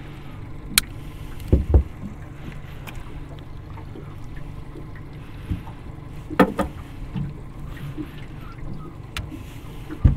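A few sharp clicks and knocks as a collapsible mesh redclaw pot is worked open with pliers and its wire frame handled, over a steady low background of wind and water.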